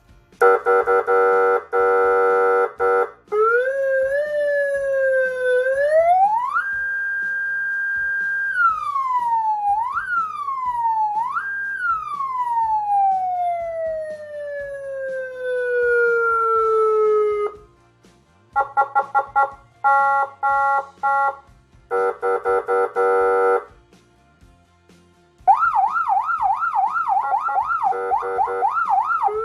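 CJB 200 W nine-tone electronic siren amplifier played through its siren speaker, stepping through its tones: a buzzing horn tone, a wail that rises, holds, yelps up twice and then winds down slowly, short pulsed tones, another horn blast, and a fast yelp going up and down about three times a second.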